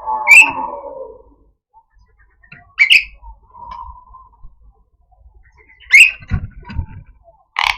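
Javan myna (jalak kebo) giving harsh, rasping 'cukrek' calls: four short, sharp notes about three seconds apart, with a couple of low knocks after the third.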